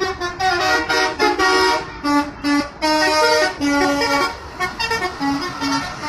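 Bus telolet horn, a multi-tone air horn, playing a quick tune of short notes that step up and down in pitch, over the hiss of road and engine noise.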